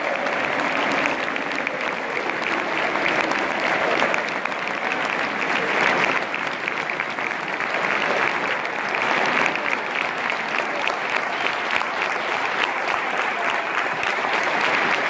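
A large stadium crowd of thousands clapping: dense, steady applause with crowd voices mixed in.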